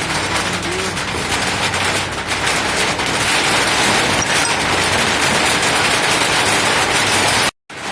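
Steady drizzling rain, a dense even patter, with a split-second cut to silence near the end.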